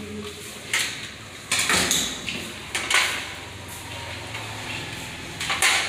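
Metal clicks and knocks from hands working parts into an electrical breaker panel, a few separate strikes with the loudest near the end.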